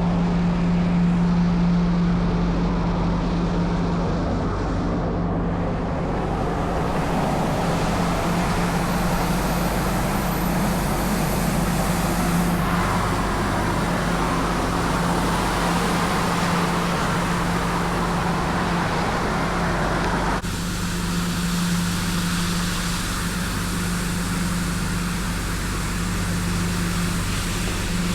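Tymco 435 regenerative-air street sweeper running: a steady low engine and blower drone with a broad hiss of air over it. The hiss changes abruptly about two-thirds of the way through.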